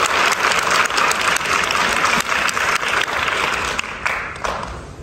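Audience applauding, a dense run of many hands clapping that dies away about four and a half seconds in.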